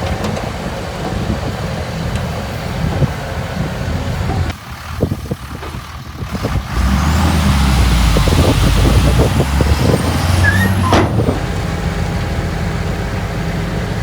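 Heavy diesel construction machinery running. The engine dips for a moment, then works harder and louder from about seven seconds in, with a high squeal sliding up and down over the engine for a few seconds.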